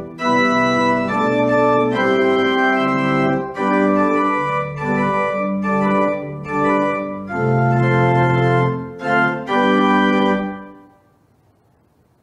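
Organ playing sustained full chords in short phrases, ending on a final chord about eleven seconds in that dies away in the room.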